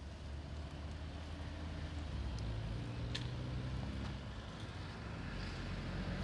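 A motor vehicle's engine running with a steady low hum, over a haze of traffic noise; one sharp click about three seconds in.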